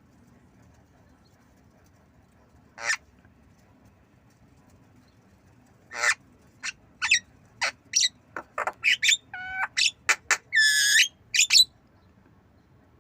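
Javan myna calling: one short harsh note about three seconds in, then a quick run of short harsh notes and clear whistled notes from about halfway until near the end.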